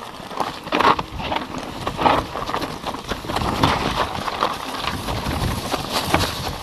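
Mountain bike rolling downhill over rocks and dry leaves: tyres crunching and the frame and handlebars rattling, with irregular knocks as the wheels hit stones.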